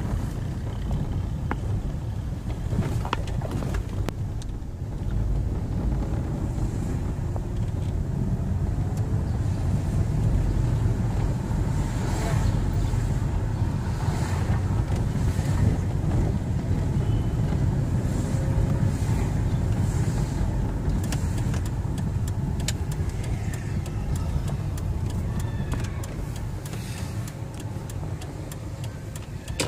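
Road and engine noise heard from inside a moving car: a steady low rumble, with scattered light clicks in the second half.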